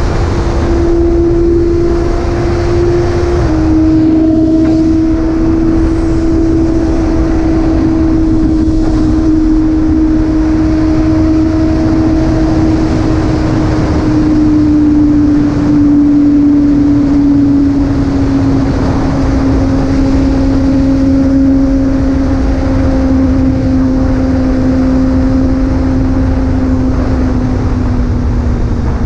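Motorcycle engine running at a steady cruise on the road, its pitch slowly dropping as the bike eases off. Heavy wind rumble on the microphone runs under it.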